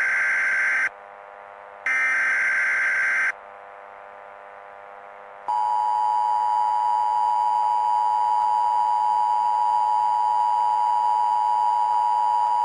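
Emergency Alert System SAME data bursts: raspy two-tone digital squawks, one ending just under a second in and another lasting about a second and a half. About two seconds after the last one, the steady NOAA Weather Radio 1050 Hz warning alarm tone starts and holds, heralding a new alert message.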